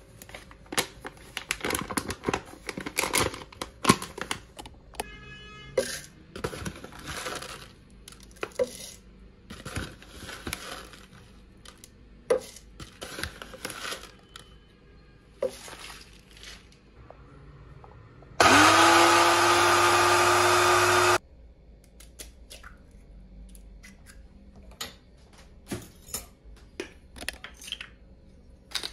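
Kitchen prep handling: utensils and containers clicking, knocking and rustling. About two thirds of the way in, a small electric kitchen blender runs in one short burst of about three seconds. It is the loudest sound, its motor pitch rising as it spins up, and it cuts off suddenly.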